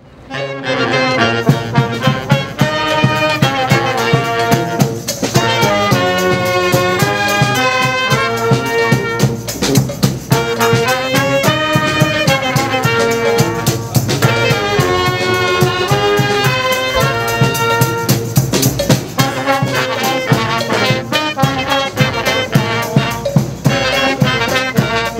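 Brass band with tuba and drum playing a tune with a steady beat; it starts suddenly.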